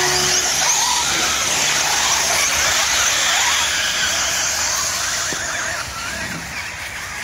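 A pack of radio-controlled truggies racing together, their motors revving up and down at many overlapping pitches in a dense, high-pitched whine. It gets quieter about five and a half seconds in as the cars move off around the track.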